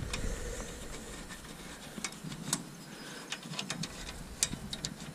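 Scattered light clicks and metal taps of hand tools being used on a combine harvester during repair work, with a few quick taps close together about four and a half seconds in.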